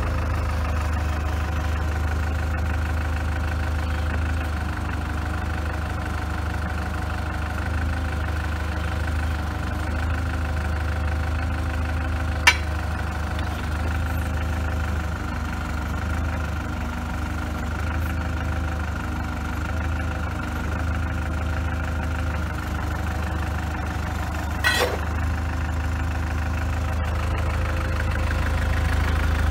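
Daewoo forklift engine idling steadily, with a sharp click about twelve seconds in and another near twenty-five seconds.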